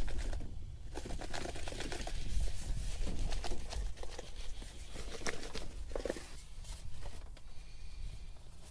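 Baking soda shaken out of a cardboard box, pattering and crackling onto a golf cart's battery tray, with fizzing where it neutralises spilled battery acid. The crackling thins out over the last couple of seconds.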